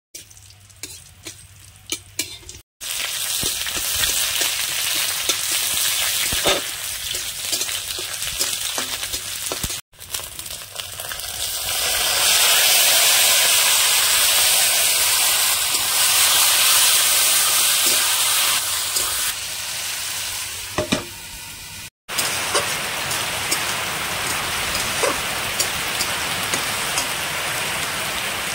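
Food sizzling in hot oil in a pan, with stirring and scattered crackles. It comes in several short clips joined by abrupt cuts: faint and crackly at first, loudest a little before the middle.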